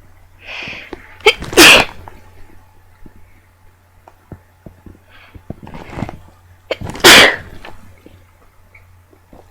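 A person sneezing twice, about a second and a half in and again about seven seconds in, each sneeze loud and sudden and preceded by a sharp intake of breath.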